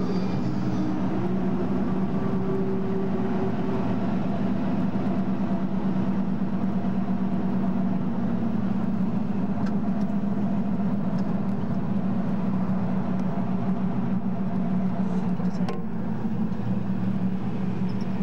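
Open-air parking-lot tram running at steady speed: an even low drone of engine and road noise.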